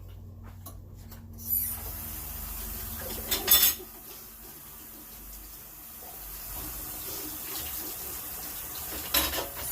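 Kitchen tap running into a sink: the water comes on suddenly about a second and a half in and runs steadily until near the end, with a few knocks of things being handled in the sink.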